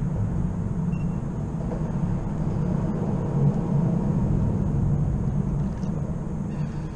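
Low rumble of road traffic on the causeway bridge overhead. It swells to its loudest about halfway through and eases off near the end.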